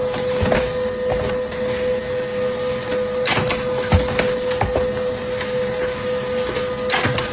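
A small machine running steadily: an even whirring noise with a constant hum-like tone, with scattered clicks and knocks and one louder knock about four seconds in.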